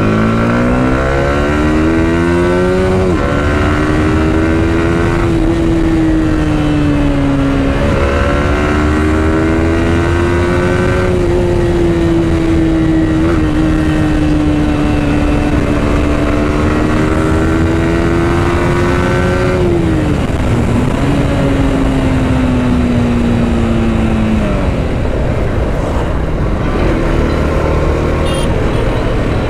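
Yamaha R15M's 155 cc single-cylinder engine accelerating hard through several upshifts, its pitch climbing and then dropping briefly at each gear change. After about twenty seconds the pitch slides down as the bike slows, settling lower near the end.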